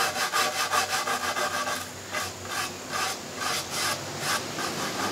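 Brass wire brush scrubbing back and forth over stripper-softened finish on a molded oak table edge: quick scratching strokes about four or five a second, growing quieter and more spaced after about two seconds.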